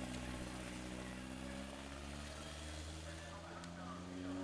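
Pre-war racing car's engine running as it drives through a wet corner and pulls away. Its note rises slightly near the end.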